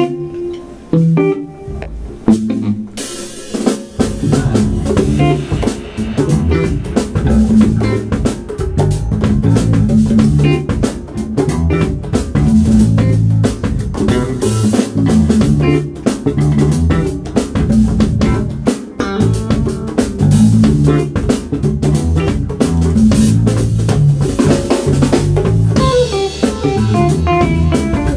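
Live band playing an instrumental: electric guitar alone for the first three seconds, then drum kit and electric bass come in together and the full band plays on with a steady beat.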